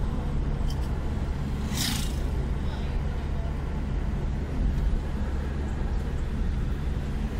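Steady low engine and road noise of a moving car, with a brief hiss about two seconds in.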